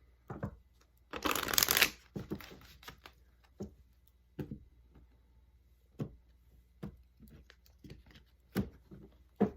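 A deck of oracle cards being shuffled by hand: a loud rush of cards about a second in, then scattered soft taps and flicks of cards.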